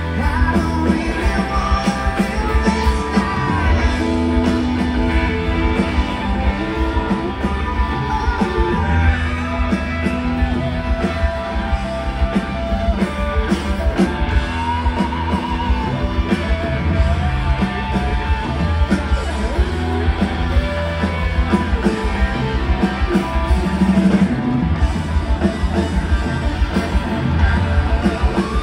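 A live rock band playing full-on, with drums, bass and electric guitar and a voice singing over them.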